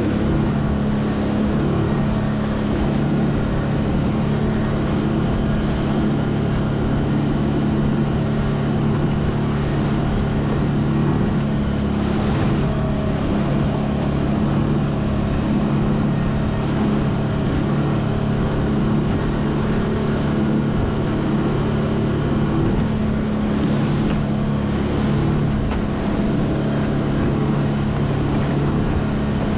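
Single outboard motor on a small boat running steadily at cruising speed: an even, loud hum, with rushing water and wind over it.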